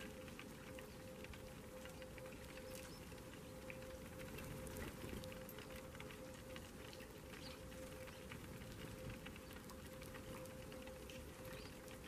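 Eurasian tree sparrows pecking seed off a hard feeding tray: a faint, irregular patter of small taps, over a steady low hum.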